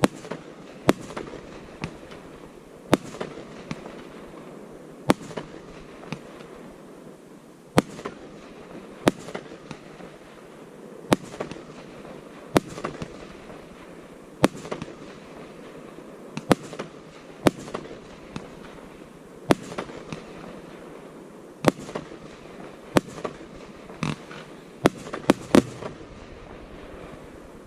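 Aerial fireworks display: sharp shell bursts going off in quick succession, about one bang a second, over a continuous lower rumble, with a tight cluster of bangs near the end.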